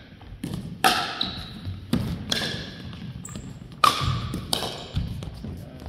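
Pickleball paddles hitting a plastic pickleball during a rally, a string of sharp pocks about every half second to a second, with ball bounces among them. A large gymnasium's echo trails each hit.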